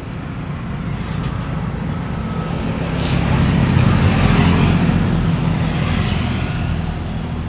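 Street traffic with a motor vehicle passing close by. Its engine and tyre noise grows louder to a peak around the middle, then fades, over a steady background of road noise.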